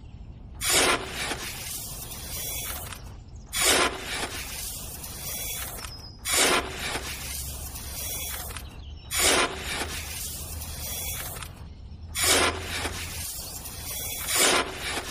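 A small scoop scraping through sand and gravel in a plastic bucket and tipping it into a toy cement mixer's drum: a short gritty rasp about every three seconds, six in all, over a faint steady hiss.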